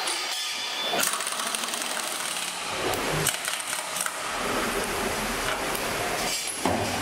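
Handheld power tool with a socket running down the steering stem nut on a motorcycle frame's head tube.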